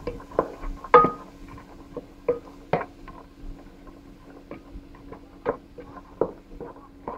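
A wooden spoon stirring diced carrots in a pot: irregular knocks and scrapes of the spoon against the pot, the loudest about a second in, over a faint steady hum.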